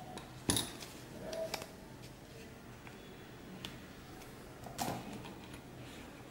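Ray-Ban sunglasses case and paper leaflet being handled: a sharp click about half a second in, another near the end, and softer taps and rustles in between.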